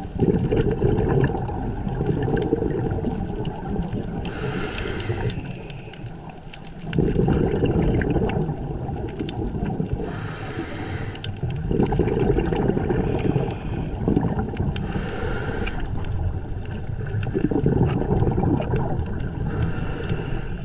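Scuba diver breathing through a regulator, heard underwater: a hiss on each inhale and a low rush of exhaled bubbles between them. A breath comes about every five seconds.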